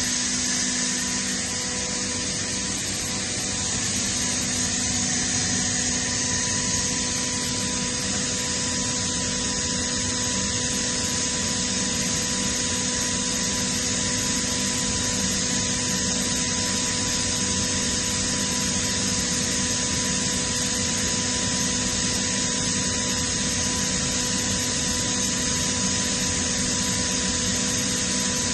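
Kaeser CSDX162 oil-injected rotary screw air compressor running steadily: a constant machine whir with a steady hum.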